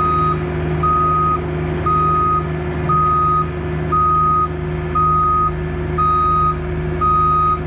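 Excavator's backup alarm beeping about once a second, each beep about half a second long, over its engine running steadily.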